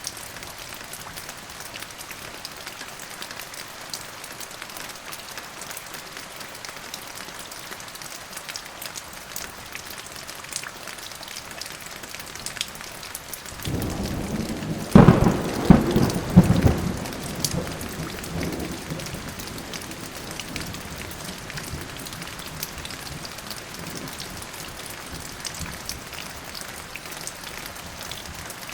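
Steady rain falling, with a thunderclap about halfway through: it builds, cracks loudly several times in quick succession, then rumbles away over a few seconds.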